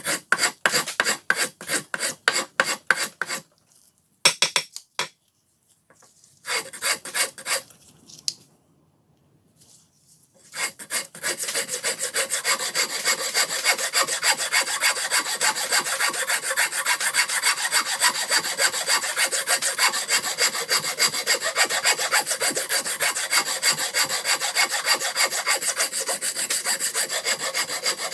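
Carbon-steel four-way wood rasp scraping across a wooden board in quick back-and-forth strokes. The filing stops and starts a few times in the first ten seconds, then runs steadily and fast from about ten seconds in.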